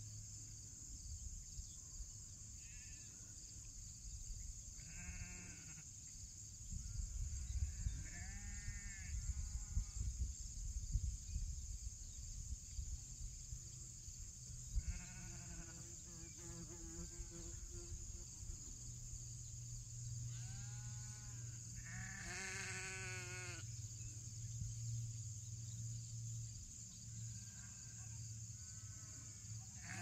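Sheep bleating, about ten separate baas scattered through the flock every few seconds. A low rumble swells for several seconds about a third of the way in.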